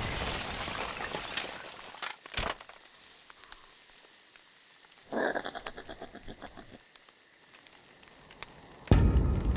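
Cartoon sound effects: the rumble of an explosion dies away, and a single sharp thump comes about two seconds in. About five seconds in there is a short, pulsing animal call, the possums' cry, and a sudden loud blast comes near the end.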